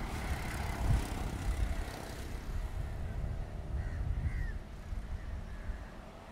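Low, uneven rumble of a Brush Traction Class M7 diesel locomotive approaching under power.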